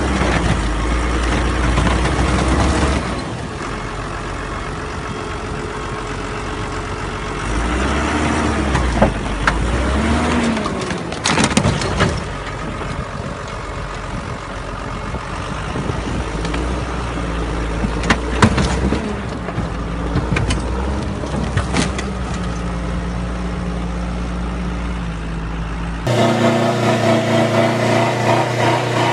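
Big John Deere farm tractor's diesel engine running under load as it drives over a car, with its pitch rising and falling a few times and several sharp cracks of the car body crushing. Near the end the sound changes abruptly to a Toyota Hilux pickup's engine running.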